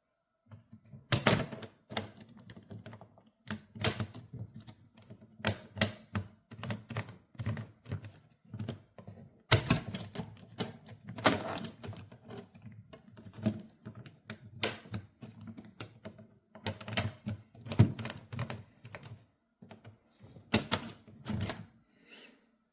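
Irregular hard plastic clicks and knocks from a hardside carry-on suitcase being handled, with a low rumble between them.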